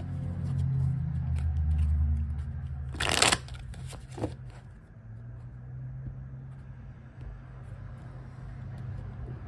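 A deck of tarot cards being shuffled and handled by hand. There is a low rumble of handling for the first few seconds, a short riffle of the cards about three seconds in, and a light tap a second later. After that comes quieter handling as the cards are set down.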